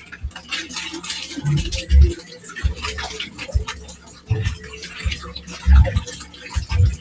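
Crinkling and rustling with irregular low thumps: packs of tocino being handled as two brands are opened and mixed together.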